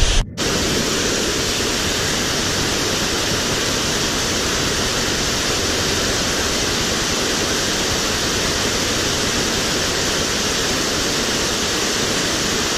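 Small waterfall pouring into a rocky stream pool: a steady rush of water, broken by a split-second gap just after the start.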